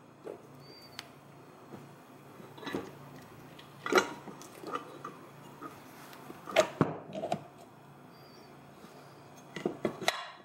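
Metal parts of a Bendix hydroboost clinking and knocking as its housing halves are pushed back together by hand, with scattered sharp knocks about four and seven seconds in and a quick cluster of clicks near the end.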